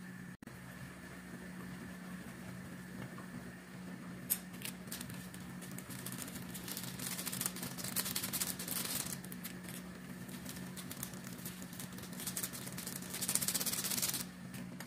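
Water boiling with noodles in a frying pan on a gas burner: a steady bubbling crackle, growing louder and more rustling in two stretches, about seven to nine seconds in and again near the end, as seasoning powder is shaken in from a sachet. A steady low hum underneath.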